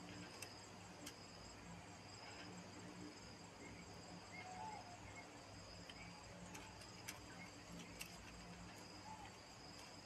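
Faint, steady insect chirring, likely crickets, pulsing on and off in a high band, with a few soft sharp clicks.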